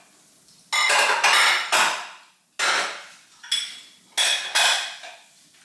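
Metal cookware and utensils being handled on a stovetop: about seven sharp clanks and knocks of pans and utensils at irregular intervals, each ringing briefly.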